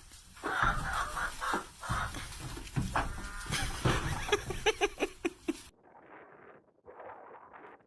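Chickens clucking, with a quick run of short clucks just before the sound cuts off suddenly to a quieter, muffled background.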